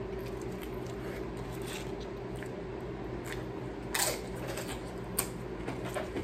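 A person eating close to the microphone: soft chewing and biting on a chicken burrito, with two sharper crackles about four and five seconds in, over a steady low room hum.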